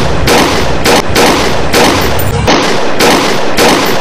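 Rapid gunshot sound effects: a run of loud pistol-like shots at about three a second.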